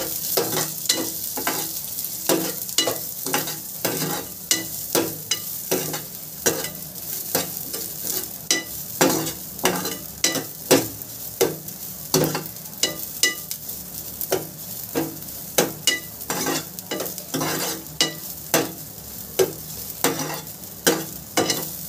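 Steel ladle repeatedly scraping and tapping against a frying pan, about two strokes a second, as soaked, crushed rice grains are stir-fried in a little hot oil, with a light sizzle underneath.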